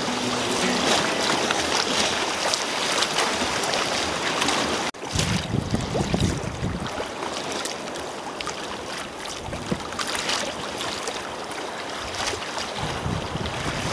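Choppy sea water splashing and rushing against the hull of a sea kayak as it paddles through rough water. The sound breaks off for an instant about five seconds in, after which wind buffets the microphone in gusts over the sound of the waves.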